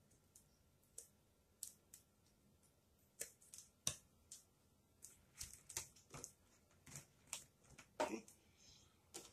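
Scissors snipping through a stiff sheet of plastic canvas: sharp, irregular clicks, sparse at first and coming quicker from about halfway through. A brief scraping sound comes near the end.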